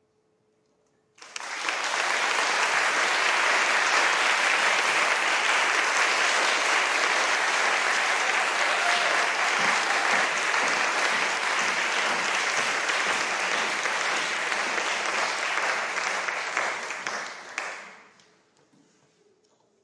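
Audience applauding. The clapping breaks out about a second in, holds steady and cuts off fairly suddenly near the end.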